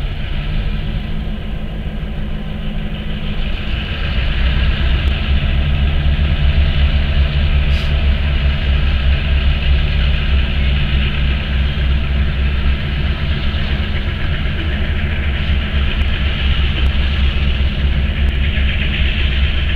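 Two EMD GP-series diesel-electric locomotives, two-stroke diesels, working hard as they pull covered hoppers. The steady low engine drone steps up louder about four seconds in and holds there.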